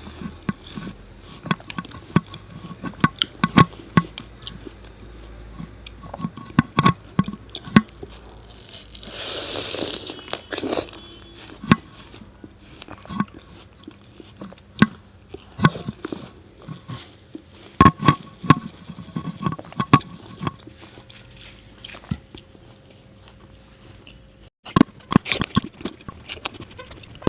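Close-miked biting and chewing of watermelon, with irregular crisp, wet crunches as the juicy flesh is bitten and chewed.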